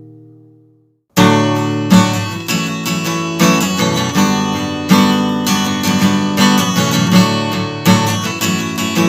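A held chord dies away, there is a moment of silence, and then acoustic guitar strumming starts about a second in, with chords struck in a steady rhythm as the intro of a song.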